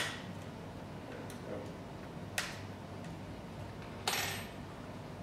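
Light clicks and taps of hard plastic parts being handled during assembly of a clear-panelled 3D printer kit: a sharp click at the start, a faint one about a second in, another about two and a half seconds in, then a short scraping rustle about four seconds in.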